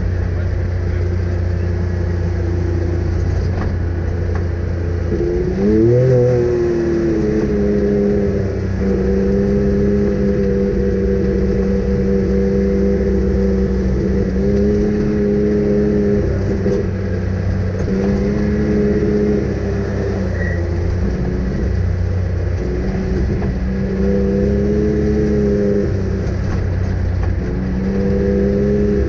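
An off-road vehicle's engine running under load. Its pitch rises about six seconds in, then holds fairly steady with small rises and dips in revs.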